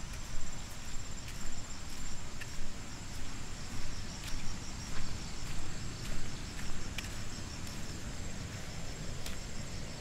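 Footsteps on a dirt footpath, about two steps a second, fading after about seven seconds. Behind them runs a steady, rapidly pulsing insect chorus.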